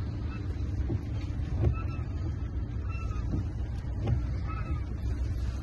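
Inside a slowly driving vehicle: steady engine and road rumble, with the windshield wipers sweeping the glass and giving a short squeak about once a second.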